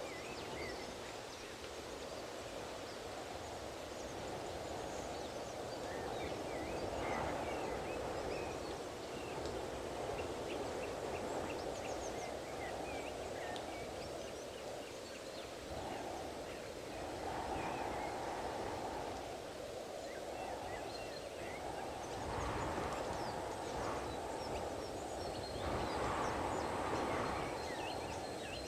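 Strong gusty wind blowing, swelling and easing every few seconds, with faint high chirps and ticks scattered over it.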